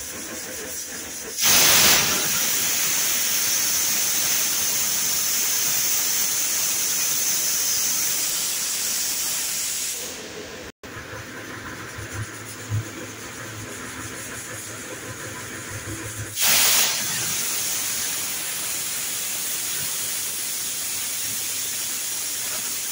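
Vinod stainless-steel pressure cooker whistling twice: each time the weight valve lifts with a sudden loud blast of steam that settles into a steady hiss lasting several seconds. These are the whistles counted to time the rice.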